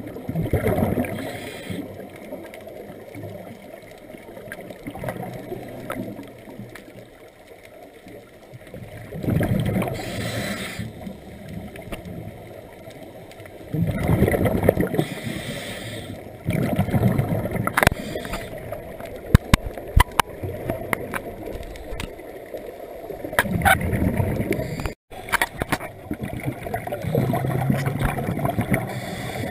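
Scuba regulator breathing underwater: exhaled bubbles gurgle out in surges every few seconds, with quieter hiss and scattered sharp clicks between breaths.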